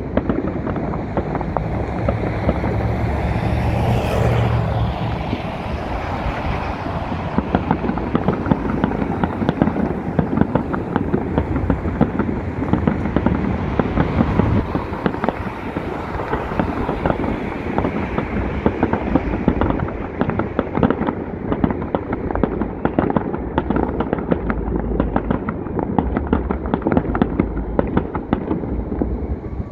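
Aerial fireworks display: a dense, continuous string of bangs and crackles from shells bursting overhead, with deeper rumbling booms heaviest a few seconds in and again near the end.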